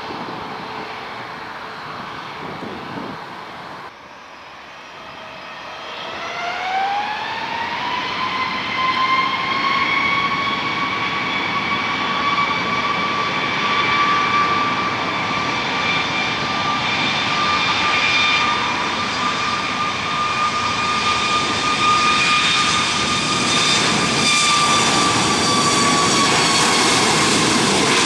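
Boeing 737 turbofan engines spooling up for takeoff. A few seconds in, a whine rises in pitch and then holds steady and high over a loud roar.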